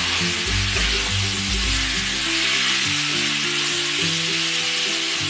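Pork pieces and onion sizzling steadily in a frying pan as a spatula stirs them, over background music with a bass line.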